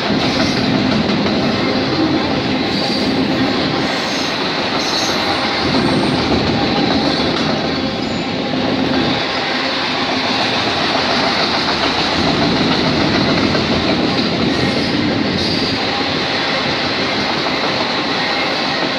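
Autorack freight cars rolling past close by at speed: a steady, loud rumble and clatter of steel wheels on the rails. A thin high squeal runs underneath, and the low rumble swells and eases every few seconds as cars go by.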